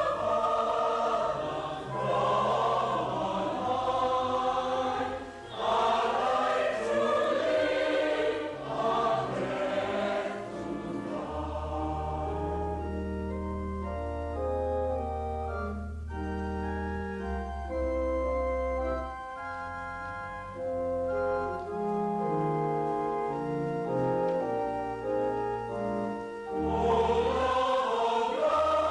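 Church choir singing a hymn with organ accompaniment. About ten seconds in the voices stop for an organ interlude of held chords over long low pedal notes, and the choir comes back in near the end.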